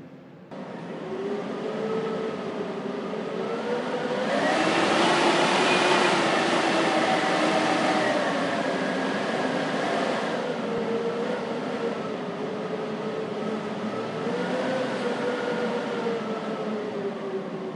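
Blizzard wind howling: a steady rush with wavering whistling tones over it, swelling into a strong gust about four seconds in and easing off after about ten seconds.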